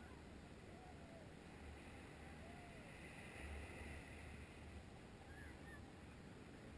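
Near silence: faint wind gusting on a small action camera's microphone, a low uneven rumble, with a few faint short chirps.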